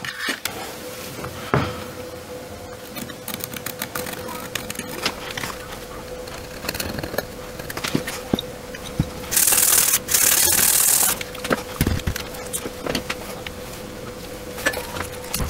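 A wooden stick scraping and rubbing at corroded copper pads and traces on a TV power supply board, with many small clicks and ticks, to clean away moisture corrosion before the broken traces are bridged. About ten seconds in, a hiss lasts roughly two seconds, and a faint steady tone sits underneath.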